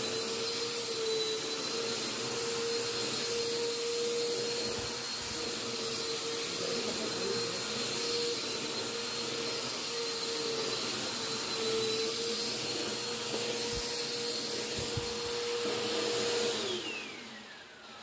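Bissell PowerForce upright vacuum cleaner running steadily on carpet with a steady whine over its hiss, sounding really good now that its clog has been cleared. Near the end it is switched off and the motor winds down with a falling whine.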